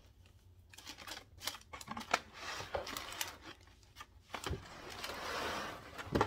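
Cardboard shoebox being opened and the tissue paper inside handled: a run of small clicks and taps, then paper rustling about five seconds in, ending in a sharper tap.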